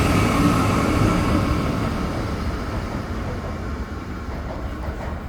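Belo Horizonte Metro Série 1000 electric train pulling away, its rail running noise and faint whine fading steadily as it recedes.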